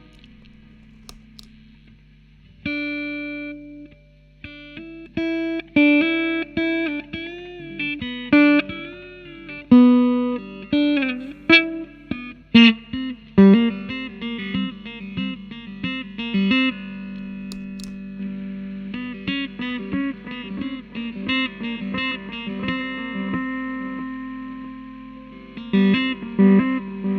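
Electric guitar played through a Sinvertek Fluid Time MK2 effects pedal: picked single notes and short phrases, some wavering in pitch. The playing starts about three seconds in, and a steady low hum sits underneath.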